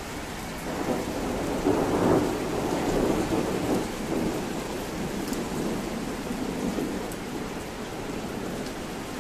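Steady rain falling in a thunderstorm, with a roll of thunder rumbling in about a second in. The thunder is loudest around two seconds, then dies away over the next few seconds.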